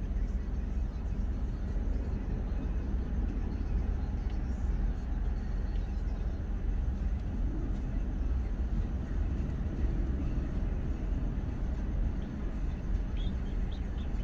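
Steady deep rumble of idling and slow traffic, heard from inside a car's cabin while it waits in stop-and-go traffic.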